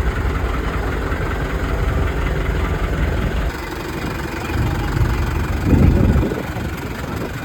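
Boat engine running steadily with a low rumble, swelling briefly louder about six seconds in.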